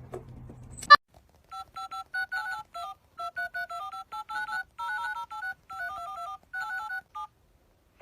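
Telephone keypad touch-tones: a fast run of short dual-tone beeps, about five a second, the pair of pitches changing from key to key in a rhythmic pattern. A sharp click comes about a second in, just before the beeps start.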